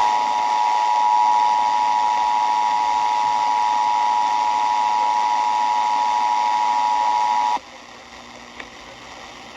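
Emergency Alert System attention signal: a steady two-tone broadcast alarm, two pitches sounded together near 1 kHz, over a hiss. It cuts off abruptly about seven and a half seconds in, leaving a fainter hiss.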